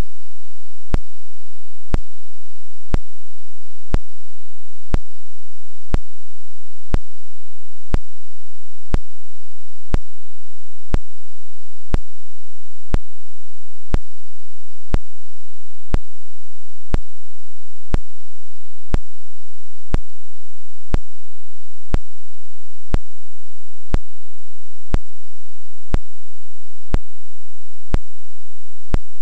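Sharp clicks about once a second, evenly spaced like a metronome or clock tick, over a faint steady hiss and a thin high tone.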